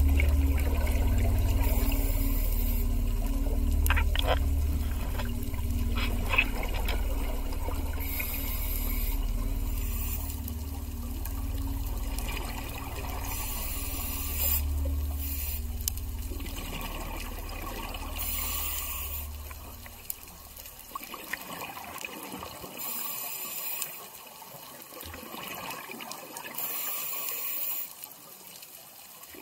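Underwater sound of scuba diving: bubbles from a diver's regulator exhaust hiss in bursts every few seconds. A low rumble underneath fades out about two-thirds of the way through.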